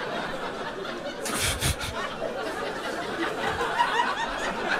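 Audience laughing and chuckling at a joke, with a short cluster of sharp hits about a second and a half in.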